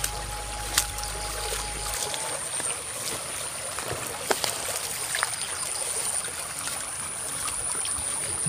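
Water trickling along a shallow paddy-field ditch, with scattered footstep clicks.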